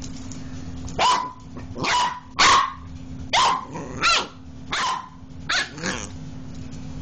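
Pembroke Welsh Corgi puppy barking at a switched-off electric massager: about eight short, high-pitched barks in a row, a little under a second apart.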